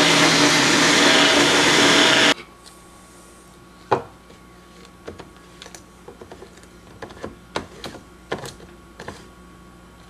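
Magic Bullet personal blender's motor running while blending a chocolate milkshake, then cutting off suddenly about two seconds in. After it come a few light, scattered plastic clicks and knocks as the cup and blade base are handled.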